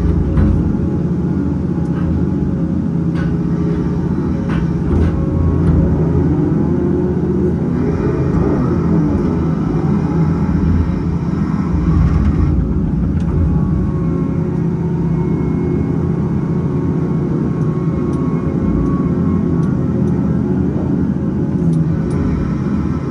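Cat 568 log loader's diesel engine running steadily, heard from the cab, as the hydraulic boom and grapple swing and load logs. A few brief knocks stand out over the engine.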